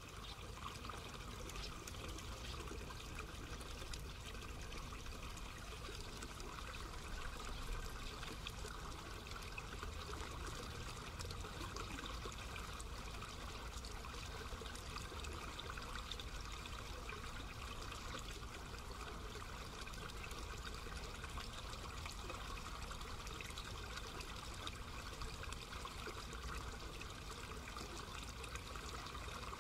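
Water running steadily in an agricultural irrigation channel.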